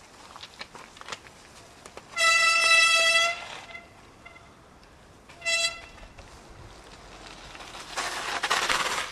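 A horn sounding one long steady blast of about a second, then a short toot a couple of seconds later. Near the end there is a swelling rush of noise.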